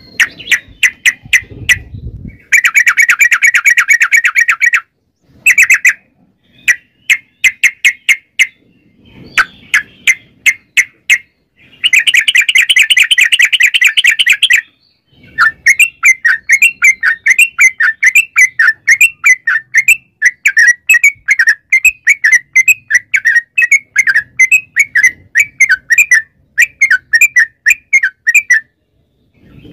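Yellow-vented bulbul singing loudly in bursts of quick, sharp chattering notes, with two long, very fast trills (the 'ropel' roll) a little over two seconds in and about twelve seconds in. From about halfway it goes into a long run of quick warbled notes that stops shortly before the end.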